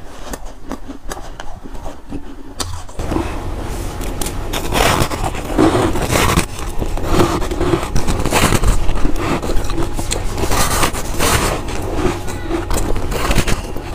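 Close-up biting and chewing of soft chunks of freezer frost ice: a squeaky, crunchy munching, sparse and softer at first, then dense and continuous from about three seconds in.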